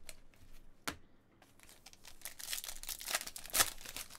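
Foil wrapper of a Panini Select football card pack crinkling as it is handled and started open, building from about halfway and loudest near the end. A single sharp tap comes about a second in.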